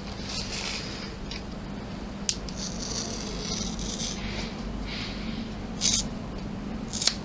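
Scissors cutting through machine-embroidered fabric and clear vinyl sheet, with a few sharp snips among softer scraping cuts.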